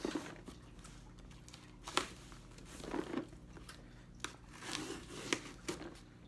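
Cardboard package being opened by hand: irregular crinkling, tearing and rustling of packaging, broken by a few sharp clicks and taps.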